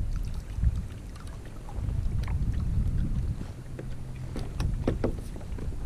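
Wind rumbling on the microphone and gear being handled on a kayak, with a few sharp clicks and knocks, several close together near the end.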